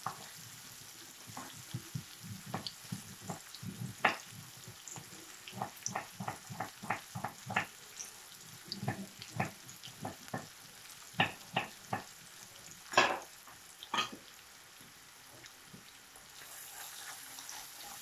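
Sliced onion frying in hot oil in a pan: a steady sizzle with irregular crackles and pops, two louder pops about thirteen and fourteen seconds in.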